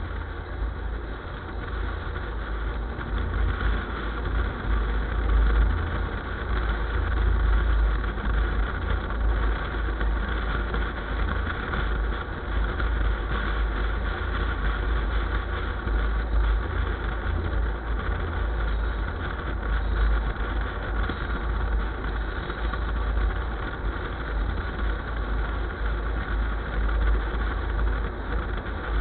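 A vehicle running with a steady low rumble and an even hiss of noise above it, with no sudden changes.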